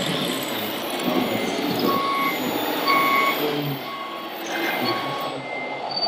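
Reversing beeper of a radio-controlled Scania tipper truck's sound module, sounding about once a second, over the background noise of the hall.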